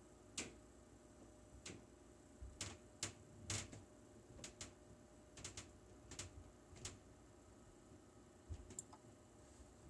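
Computer keys clicking, about a dozen sharp, irregular presses spread over several seconds.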